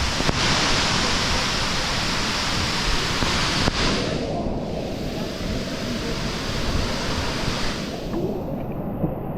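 Steady rushing of a large waterfall. About four seconds in, the sound turns duller and loses its hiss.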